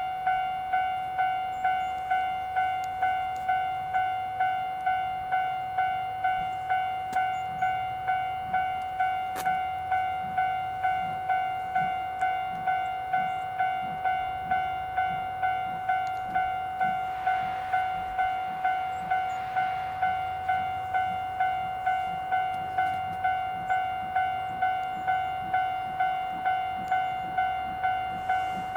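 Level crossing warning bell ringing steadily, an even ding-ding of about two strokes a second, warning of an approaching train.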